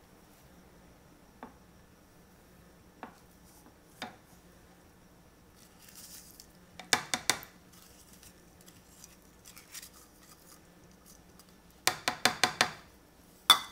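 A spatula scraping packed brown sugar out of a plastic measuring cup into a glass Pyrex measuring cup, with single clicks and knocks of the cup and spatula against the glass. A run of scrapes and taps comes about seven seconds in, and a louder one near the end.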